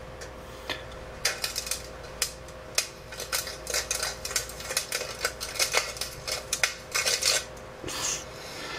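Rapid, irregular crackling and popping from a PC CD-ROM drive and hard drive burning up on mains voltage, heard through a laptop's speakers over a steady hum. The crackling starts about a second in, grows dense, and stops shortly before the end.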